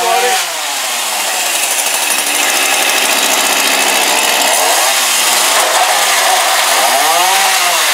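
Black Max gas chainsaw running, its two-stroke engine revving up and dropping back a few times.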